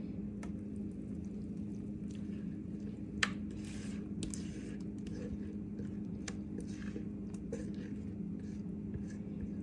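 Thick whole-wheat batter poured into a metal baking tray, with soft wet squishes and scattered small clicks, one sharp click about three seconds in, over a steady low hum.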